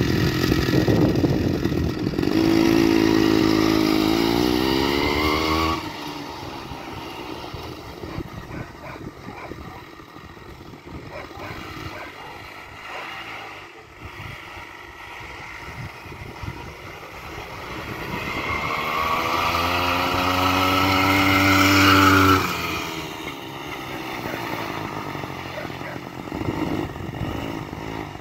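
Two-stroke Ural chainsaw engine on a homemade ski snow scooter, revving up with rising pitch as it pulls away, then fading. It grows loud again toward twenty seconds in as the scooter comes back close by, then drops away sharply.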